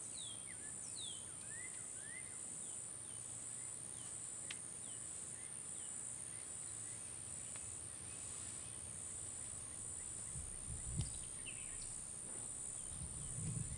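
A high-pitched insect chorus trilling steadily in pulses, with a bird giving short falling chirps, many in the first few seconds and fewer later. A few soft low thumps near the end.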